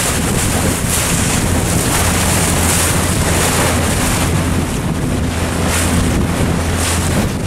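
Strong wind buffeting the microphone over the rush of choppy water, in gusts, with a motorboat's engine humming steadily underneath.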